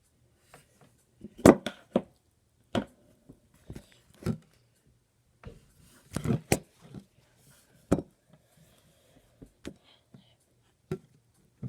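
Irregular knocks and clicks of a glitter container being tapped and handled while glitter is shaken into slime. The loudest knocks come about a second and a half in and again around six seconds.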